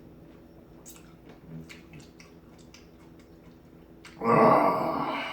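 Small clicks and chewing sounds from a mouthful of lemon, then about four seconds in a loud, long, low-pitched burp.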